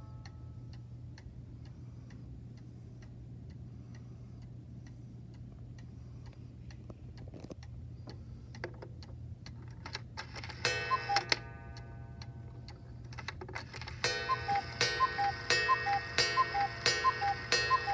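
Vintage German cuckoo clock ticking steadily over a low hum. About ten seconds in there is a short burst of chiming notes, and from about fourteen seconds the two-note cuckoo call repeats, high then low, roughly every two-thirds of a second, as the clock sounds the hour.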